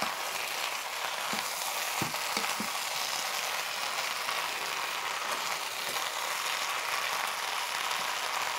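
Dakgalbi (chicken, cabbage and sweet potato in red pepper sauce) sizzling steadily in a hot frying pan as it is stir-fried with a wooden spatula. A few soft knocks of the spatula come between about one and a half and two and a half seconds in.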